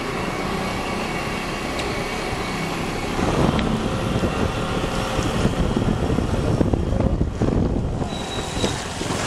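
CFMoto NK400 motorcycle on the road: engine and road noise with wind buffeting the microphone, getting louder and gustier about three seconds in.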